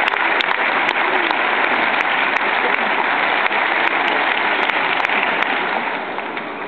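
Large arena crowd applauding in a dense wash of clapping, dying down about six seconds in.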